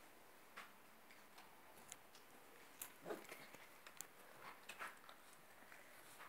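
Faint, scattered clicks and soft smacking from five-week-old bearded collie puppies suckling at their mother.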